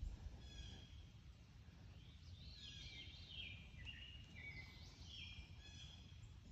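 Songbirds singing faintly: short high chirps near the start, then a busy run of quick, falling, warbling phrases from about two seconds in, with more near the end, over a low steady rumble.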